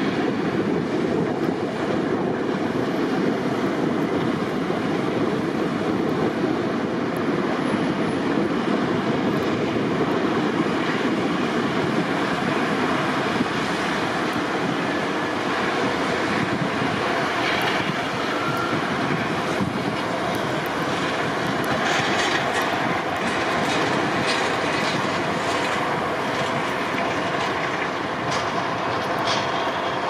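Heavy snow-clearing machinery running steadily: a continuous dense rumble with a faint steady whine, and light clicks and crunches scattered through the second half.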